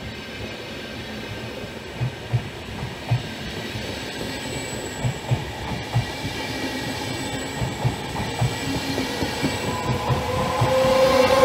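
Vivalto double-deck passenger train rolling past, its wheels thumping irregularly over rail joints and the sound growing louder as the train goes by. A steady whine from its electric locomotive comes in near the end.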